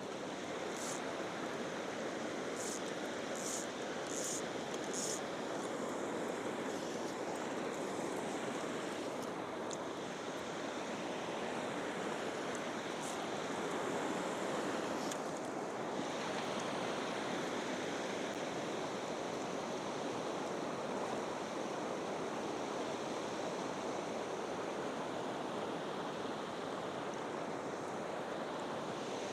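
Cimarron River water rushing steadily, an even hiss of flowing water. A few short high chirps sound over it in the first few seconds.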